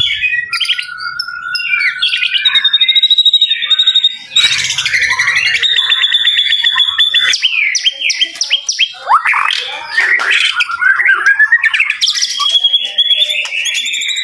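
A songbird singing a loud, fast, varied song of whistles, trills and rapidly repeated notes, with hardly a pause.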